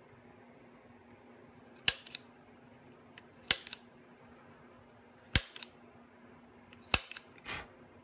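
Spring-loaded automatic center punch firing four times, once on each scribed hole mark in an aluminium block: each a sharp snap followed by one or two lighter clicks. A short scraping noise comes near the end.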